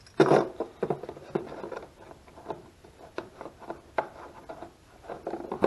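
Irregular small clicks and knocks of a carburetor and its small parts being handled and fitted back together by hand, the loudest knock about a quarter second in.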